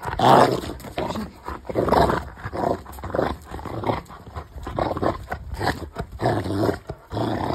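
Rottweiler growling in play while tugging on a toy, in a string of rough growls about once a second.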